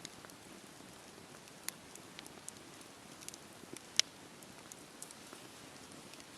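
Wood fire crackling: irregular sharp pops and snaps over a soft steady hiss, the loudest pop about four seconds in.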